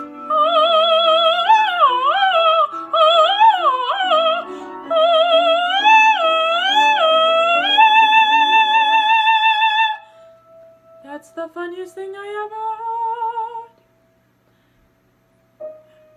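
Soprano singing an operatic aria in full voice with wide vibrato and quick ornamented runs over piano accompaniment, ending the phrase on a long held high note. After about ten seconds the piano stops and she sings a softer, slowly rising phrase alone, followed by a brief pause near the end.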